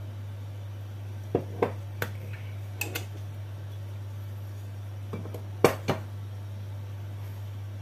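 Kitchen dishes and utensils clinking and knocking: a few sharp clinks about a second and a half in, then a second group past the middle, over a steady low hum.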